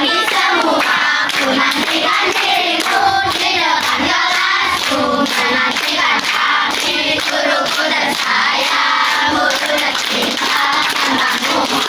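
A group of young children singing a song together in chorus, clapping their hands along.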